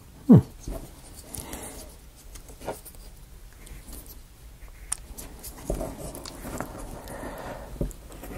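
Laser-cut plywood model parts being wiggled and pressed together by hand: scattered light clicks and wood rubbing as a stubborn piece is worked toward its slot. Near the start there is one short, loud squeak that falls quickly in pitch.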